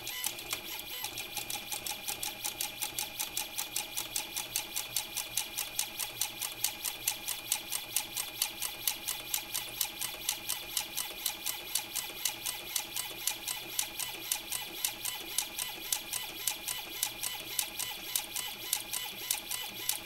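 Robotic safe auto dialer spinning a combination lock's dial: even, rapid clicking, about four to five clicks a second, over a steady motor whine as it works through combinations.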